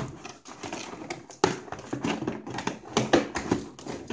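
Hands rummaging in a cardboard toy box: irregular clicks, knocks and rustling of the packaging, with a few sharper knocks.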